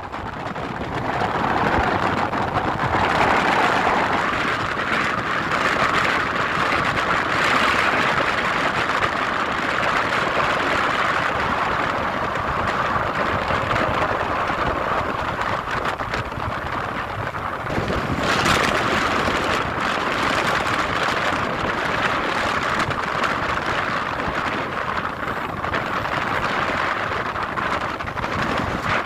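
Steady rushing noise of sea wind and breaking surf, swelling louder about eighteen seconds in.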